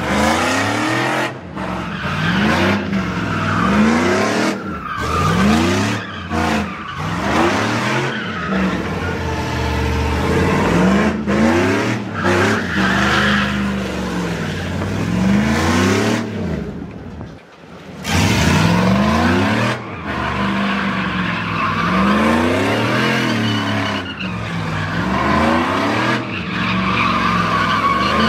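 Car engines revving up and falling back again and again, with tyres squealing and skidding as cars drift and spin donuts. The sound drops away briefly about two-thirds of the way through.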